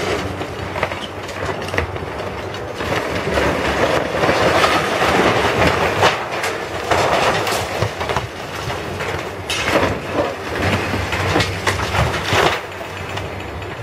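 Heavy demolition machinery at work: a diesel engine runs steadily under the continuous crash and clatter of broken concrete and steel coming down, with a denser stretch of crashing in the middle and several sharp knocks throughout.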